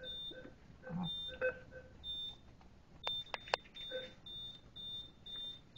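ATM beeping short, high prompt tones, about once a second at first, then about twice a second from about three seconds in. A few sharp clicks come around the time the beeps speed up.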